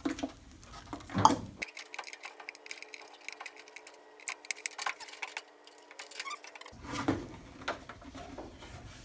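Small plastic clicks and rattles of wiring-harness connectors and a plastic LED taillight housing being handled at a truck's taillight pocket, with one sharper click about a second in.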